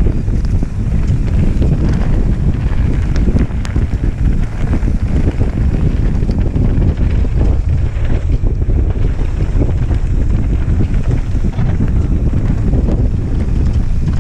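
Heavy wind noise buffeting a helmet-mounted camera's microphone on a fast mountain-bike descent, mixed with the rumble of knobby tyres on rough, dry dirt and a few small ticks.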